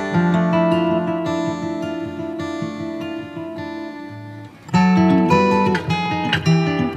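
Background music: strummed acoustic guitar. It dips briefly about four and a half seconds in, then comes back louder.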